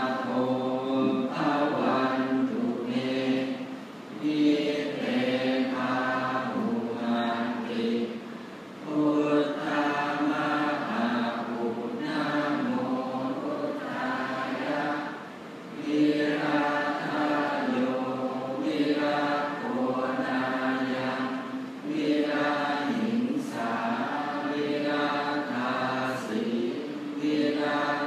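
Thai Buddhist monks chanting the morning devotions (tham wat chao) together in unison. The chant goes in long, even phrases, with brief breaks about 4, 8 and 15 seconds in.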